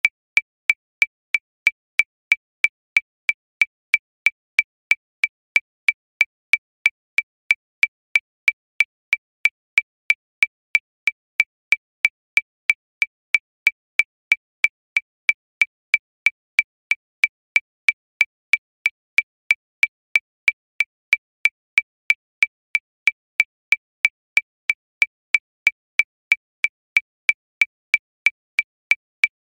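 Electronic metronome clicking at 185 beats per minute, about three sharp, high-pitched clicks a second, evenly spaced and all at the same pitch.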